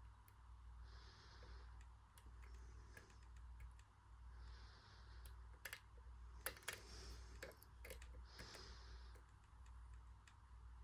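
Faint, irregular clicks and ticks of a dimple lock pick working the pins inside a six-pin CISA dimple padlock, under a steady low hum.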